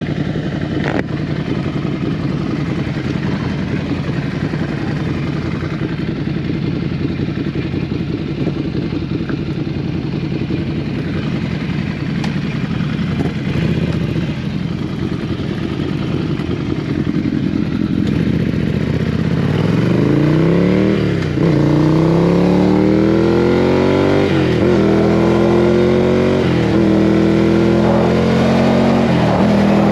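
Motorcycle engine running steadily at first. About two-thirds of the way in it accelerates hard through the gears: the pitch climbs and drops back at each of about four upshifts.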